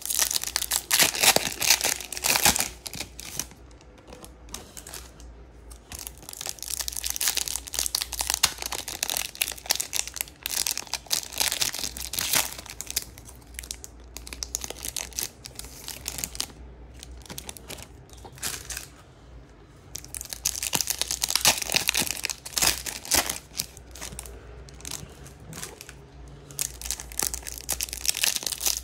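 Foil trading-card pack wrappers being torn open and crinkled in irregular bursts, with quieter stretches between.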